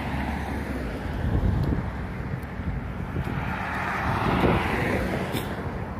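Road traffic passing on a multi-lane road: a steady rumble of engines and tyres that swells as a vehicle goes by about four to five seconds in.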